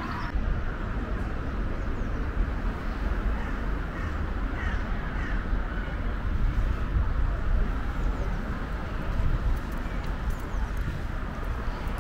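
Outdoor ambience: a steady low wind rumble on the microphone, with a few bird calls about four to six seconds in.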